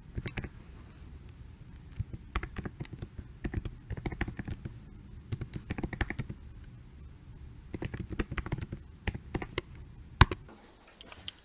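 Typing on a computer keyboard in short bursts of rapid key presses, with pauses between words. One sharper, louder click comes about ten seconds in.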